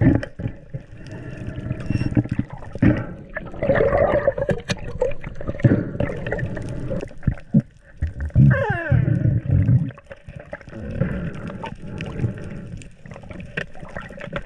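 Underwater sound around a diver handling a speargun with a speared fish on the shaft: gurgling water with scattered clicks and knocks of the gear, and a muffled falling squeal a little past halfway.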